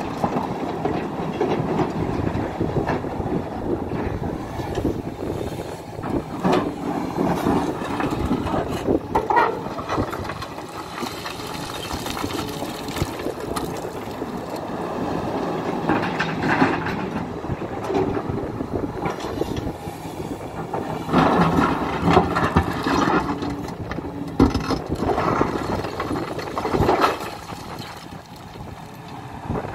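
Hidromek 310LC hydraulic excavator working in stony ground: the diesel engine runs steadily under hydraulic load while the bucket and rocks clank and clatter again and again, as in digging rock and loading it into a truck.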